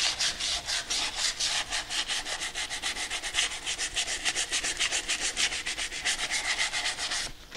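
220-grit sandpaper rubbed by hand with firm pressure over a bare aluminum alloy wheel, in quick, even back-and-forth strokes about six a second, stopping shortly before the end.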